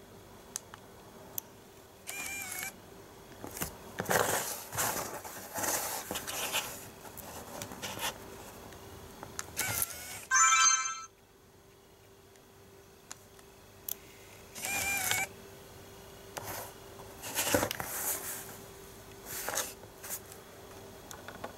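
Nikon Coolpix compact cameras, among them a repaired S7000 once stuck with a lens error, switching on and off: short electronic beeps about 2 and 15 seconds in, the whirr of the zoom-lens motors pushing the lens barrels out and drawing them back in, and a louder electronic tone about ten seconds in. The lens motor runs without a hitch, the sign that the lens error is fixed.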